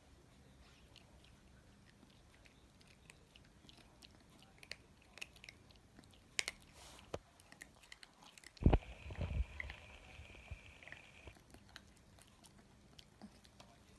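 Chihuahua puppy chewing food, with many small crunching clicks. About nine seconds in there are a few loud low thumps and a thin high tone lasting a couple of seconds.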